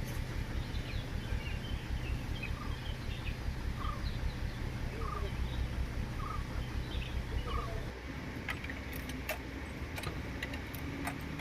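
A bird repeating a short call about once a second, with other faint chirps, over a steady low rumble; sharp ticks in the last few seconds.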